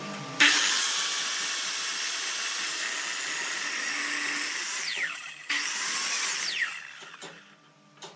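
Miter saw blade cutting through a block of wood: a loud rushing whine that starts suddenly about half a second in and runs steadily. The whine falls in pitch as the motor slows, once around the middle and again near the end, and then dies away.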